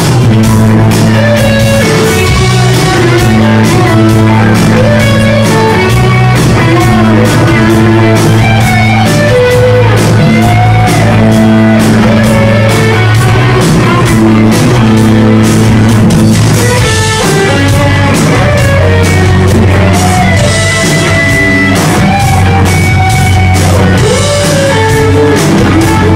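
Live rock band playing, with an electric guitar carrying a bending lead line over bass and drums.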